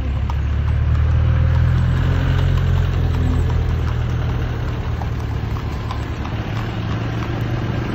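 A motor vehicle's engine running close by: a steady low rumble that swells about a second in and then slowly fades.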